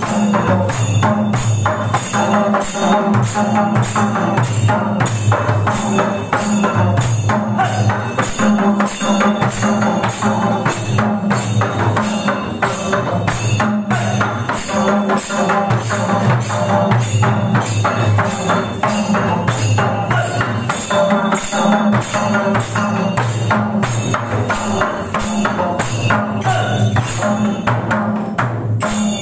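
Tharu folk dance music played live on double-headed barrel hand drums (madal), beaten in a fast, even rhythm, with jingling metal percussion on the beat.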